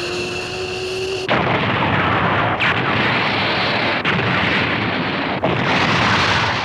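Anime battle sound effects. A steady mechanical hum with a slowly rising tone, then, about a second in, a sudden loud run of explosions and rumbling that goes on with a few short breaks.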